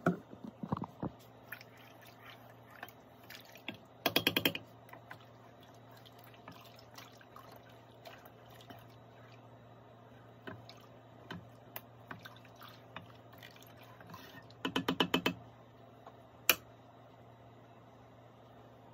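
Dye water dripping and splashing as a wig is worked in pots of dye, over a steady low hum. Two short bursts of rapid clicking, about four seconds in and again past the middle, are the loudest sounds, and there is one sharp click just after the second burst.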